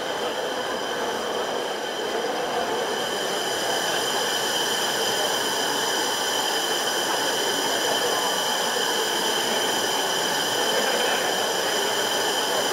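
A large bank of small electric rod actuators driving a grid of pads up and down together. It makes a steady high-pitched electric whine of several stacked tones over a hum of mechanical noise, which grows a little louder a few seconds in.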